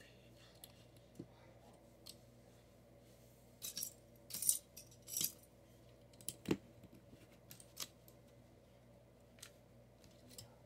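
Small plastic Lego pieces clicking and rattling as a hand rummages through a loose pile of them, with a short burst of clatter a few seconds in and a sharper single click a little past halfway.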